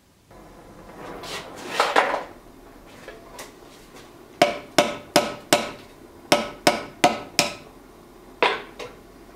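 Hand hammer striking the red-hot tang end on top of a dagger's pommel, peening it over to rivet the handle fittings in place; sharp metallic ringing blows, about a dozen in short runs of about four.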